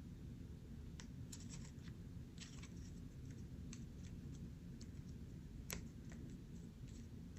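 Sheet of paper being folded and creased by hand: scattered soft crackles and taps at irregular intervals, with one sharper tick about three quarters of the way through, over a low steady room hum.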